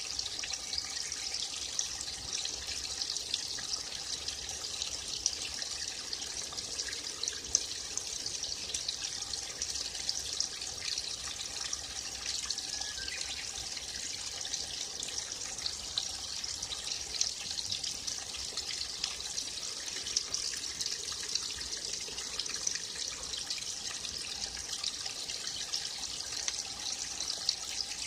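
A small forest stream trickling and splashing steadily, with many little splashes.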